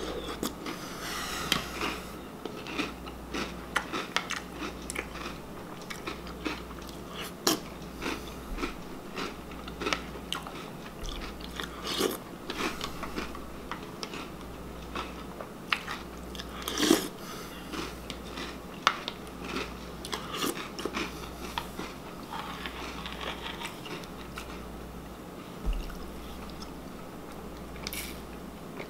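Close-up chewing of crunchy Reese's Puffs cereal in milk: irregular crunches and bites as spoonfuls are eaten.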